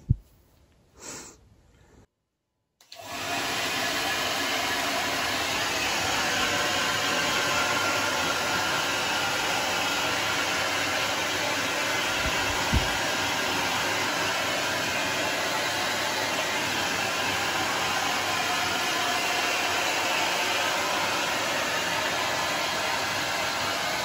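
Xiaomi folding hair dryer starting up about three seconds in and then blowing steadily on its hot-air setting, with one brief low bump midway.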